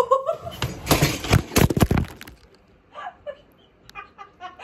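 A tumble of knocks, thumps and rustling as a large dog throws its full weight onto a person and the recording phone is knocked over. After about two seconds the clatter stops, and short gasping bursts of laughter follow.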